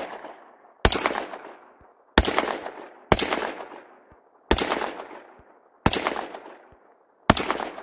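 Panzer EG200 semi-automatic 12-gauge shotgun fired rapidly with double-aught buckshot: six loud shots about 1.2 to 1.4 seconds apart, each trailing off in a fading echo, following one fired just before.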